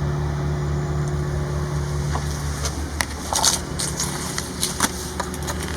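A steady machine hum with a low drone that cuts out about a second and a half in, followed by a run of scattered sharp clicks and crackles.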